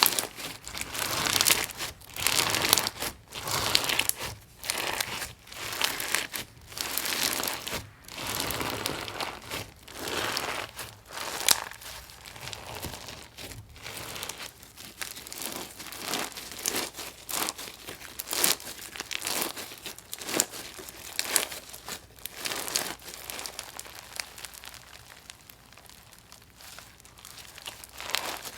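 Gritty, crunchy slime being squeezed and kneaded by hand, crackling and crunching with each press, about once a second, getting fainter near the end.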